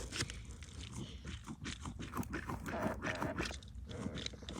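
Irregular small crunching and clicking handling noises.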